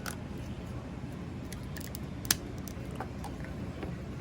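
Hard plastic parts of a Transformers toy figure clicking and tapping as they are handled and tabbed into place, a few sharp clicks with the loudest a little past halfway, over a steady low hum.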